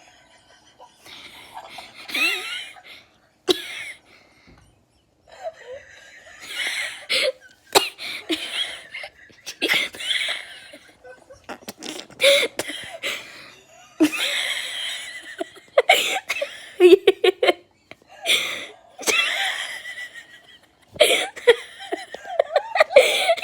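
Hard wheezing laughter: high, breathy squeaks and gasps in repeated bouts with short pauses between them, and a quick run of short hitches about two-thirds of the way through.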